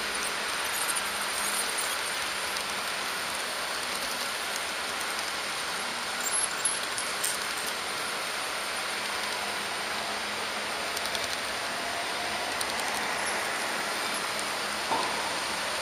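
HO-scale Märklin model train rolling along its metal track, a steady running hiss with a few short clicks about six seconds in and again near the end.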